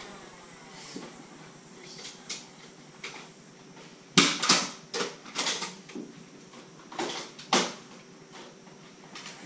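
A cluster of sharp plastic clacks and knocks from the Nerf war off camera, coming between about four and eight seconds in, the loudest about four seconds in: Nerf blasters being worked and fired and darts striking.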